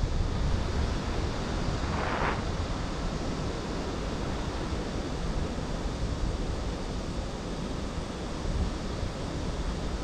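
Wind rushing over the microphone of a paraglider in flight: a steady, deep rush of airflow noise, with a brief higher rustle about two seconds in.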